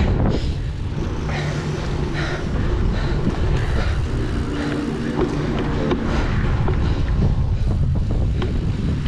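Strong wind buffeting the microphone, a dense low rumble that gusts up and down, with scattered light knocks and rattles over it.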